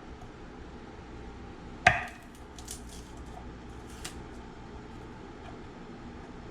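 Garlic cloves being peeled by hand: one sharp knock about two seconds in, then light crackling and a few faint taps of the papery skin coming off.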